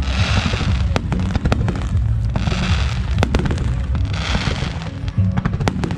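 Fireworks display: shells bursting in a rapid series of sharp bangs, with waves of hiss and crackle swelling about every two seconds.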